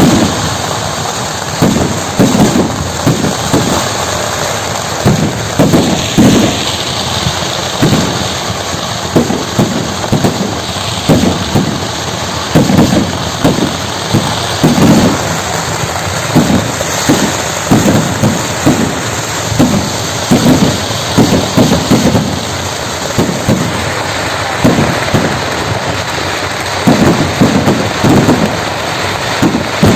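Fireworks display: a rapid, irregular string of loud booms over a continuous crackling hiss.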